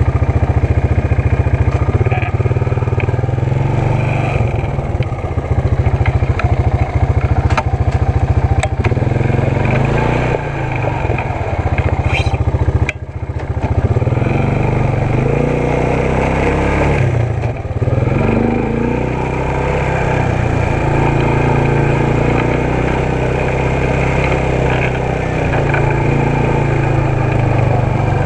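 ATV engine running under way, its pitch stepping up and down with throttle and speed changes. It eases off briefly twice midway, then picks up again.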